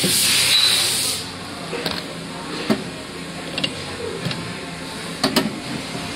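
A loud hiss from the hydrostatic test pump's hose fitting, cutting off abruptly about a second in, followed by a few sharp clicks and knocks as the hose coupling is handled.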